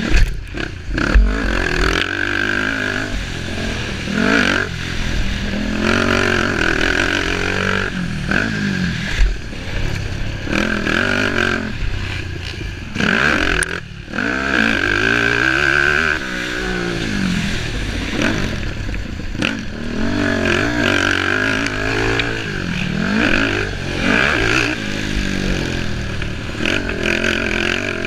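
Racing engines revving hard, the pitch rising and falling over and over as they accelerate and back off, with some scraping and clattering mixed in.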